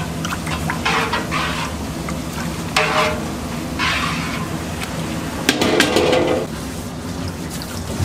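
Milky malt water in a large metal pot swished and sloshed by a wire mesh skimmer, in about four separate strokes.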